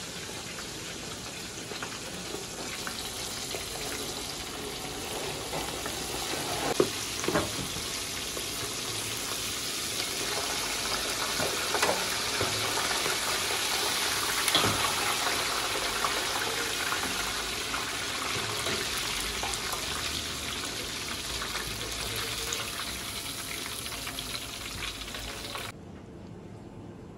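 Breaded calamari deep-frying in a pot of hot oil: a dense, steady sizzle, with a few sharp knocks, the loudest about seven seconds in. The sizzle cuts off suddenly near the end.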